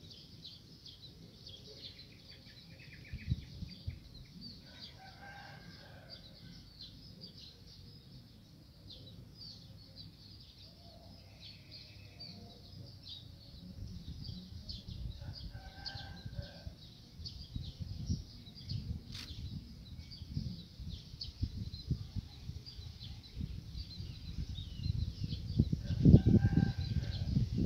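Spotted doves foraging close to the microphone: low thumps and rustles of pecking and movement that grow louder toward the end. Behind them, a steady chatter of small birds and insects, and a call sounding three times about ten seconds apart.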